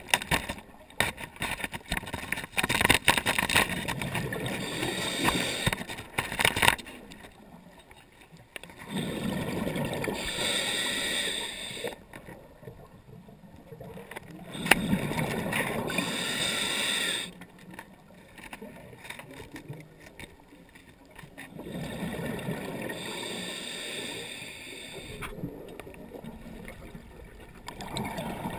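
Underwater sound recorded through a camera housing: a scuba diver's regulator breathing, with rushes of exhaled bubbles lasting a few seconds each and quieter gaps between them. Clicks and knocks come through in the first several seconds.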